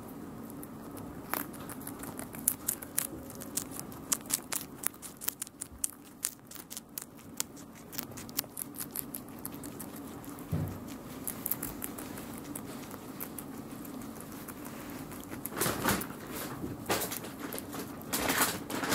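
Guinea pigs eating vegetables: quick, irregular crunching clicks, with louder rustling bursts about three-quarters of the way in and again near the end.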